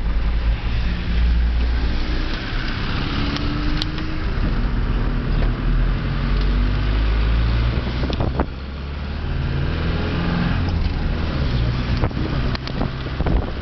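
Car engine and road rumble heard from inside the cabin while driving, the engine note rising as the car pulls away, briefly dropping about eight seconds in, then rising again.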